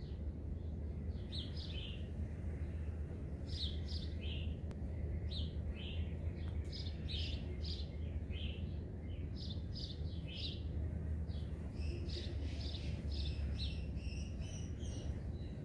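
Small birds chirping in short, high, down-sliding notes, often in twos and threes and more often near the end, over a steady low rumble.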